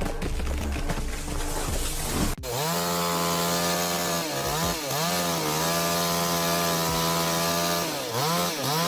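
Two-stroke chainsaw running at high revs, a steady high-pitched drone whose pitch dips briefly and comes back up twice. About two seconds in, the sound cuts abruptly from a noisier stretch into this drone.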